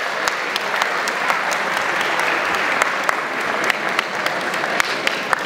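Crowd applauding steadily, with single sharp claps standing out here and there.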